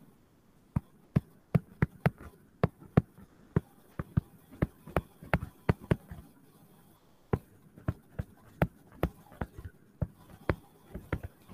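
Stylus tapping on a tablet screen while handwriting: irregular clicks, two or three a second, with brief pauses between groups of strokes.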